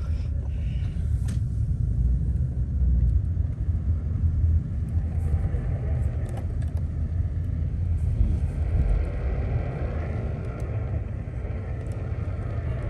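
Car on the move, a steady low rumble of engine and road noise.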